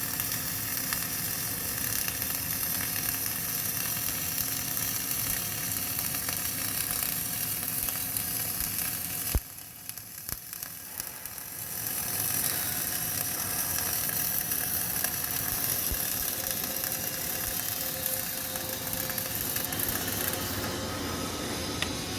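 CO2 MIG welding arc crackling and sizzling steadily. The arc stops with a click about nine seconds in, and after a short quiet gap of about two seconds it strikes again and runs on.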